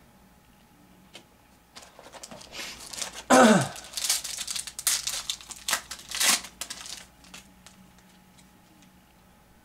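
Trading-card pack wrapper being crinkled and torn open: a run of crackling rustles between about two and seven seconds in, with a short sound sliding down in pitch at the loudest moment.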